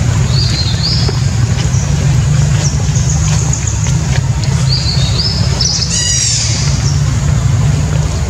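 A steady low hum throughout, with short high chirping calls that step up in pitch, heard twice, and one harsher, fuller call about six seconds in.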